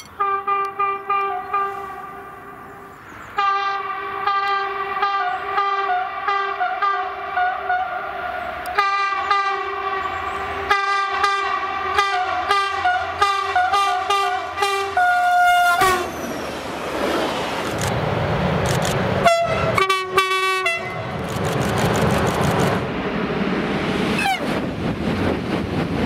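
An SNCF electric locomotive hauling a passenger train sounds its horn as it approaches: a steady chord of several tones, held in long blasts broken by short gaps, for about the first fifteen seconds. Then the train passes with loud wheel and rail noise, and a short horn blast comes partway through the passing.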